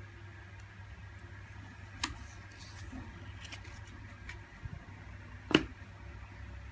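A low steady hum with a light click about two seconds in and a single sharper knock near the end, like small objects being handled or set down.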